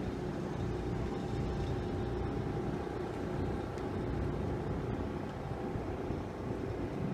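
Steady low rumble of outdoor background noise with a faint continuous hum.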